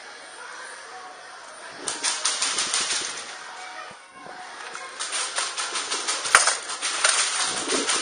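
Airsoft guns firing in rapid bursts, a train of sharp snapping clicks: a short burst about two seconds in and a longer stretch of firing from about five seconds on, with one louder crack in the middle of it.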